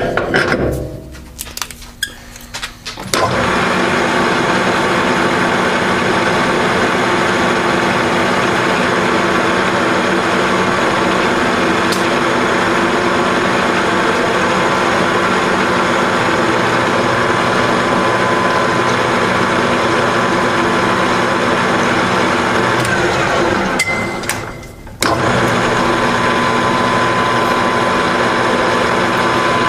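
Clanks and clicks of the lathe's levers being set, then a Grizzly G4003G gear-head lathe starts and runs steadily for a thread-cutting pass, a constant gear whine with a high tone over it. Near the end it winds down, stops briefly and starts up again.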